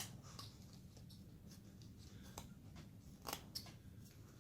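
Hand carving tool slicing small cuts in basswood: a string of faint, short scraping strokes, a sharp click at the start and a louder pair of cuts about three seconds in.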